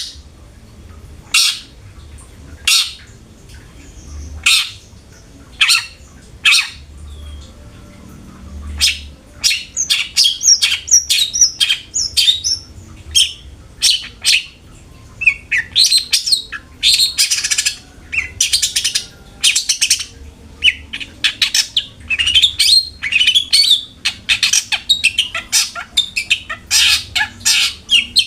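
Long-tailed shrike (cendet) calling: at first single harsh, rasping calls about a second and a half apart, then from about nine seconds in a fast, dense run of chattering and twittering notes.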